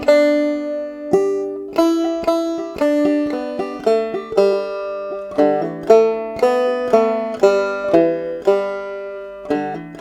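Banjo played clawhammer style: a steady run of plucked notes, each ringing and dying away, in an even rhythm of a few notes a second.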